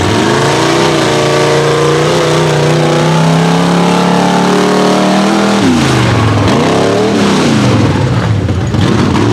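Mud-racing super truck's engine running hard at high revs with a nearly steady pitch, then revving down and up three or four times in quick succession in the last few seconds.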